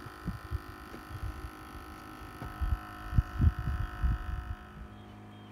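Wind buffeting the phone's microphone in irregular low thumps and rumbles, with a faint steady hum underneath that stops about five seconds in.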